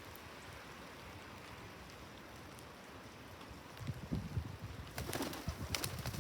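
Pigeons cooing low over a steady hiss of rain, the cooing coming in after about four seconds. A few sharp clicks sound near the end.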